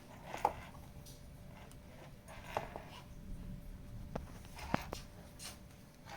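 Scattered light clicks and taps of handling, about five in all, the sharpest about half a second in and near the end.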